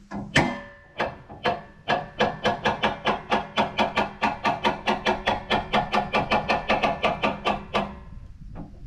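Hammer blows with a ringing tone: a few spaced strikes, then a steady run of rapid blows, about four a second, that stops near the end.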